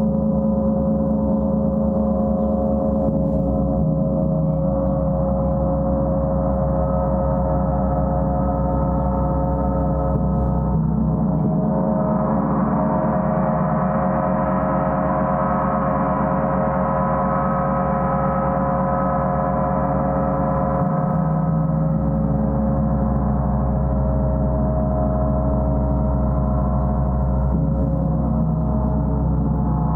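Gong played continuously: a sustained wash of many overlapping tones, growing brighter from about twelve seconds in and easing back after about twenty seconds.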